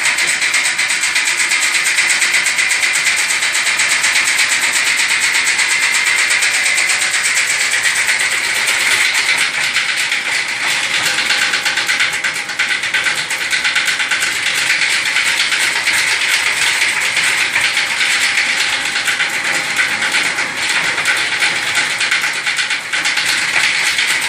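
Power drill spinning a flexible rotary chimney-cleaning rod inside a stainless-steel flue pipe, with a steady, unbroken motor noise throughout.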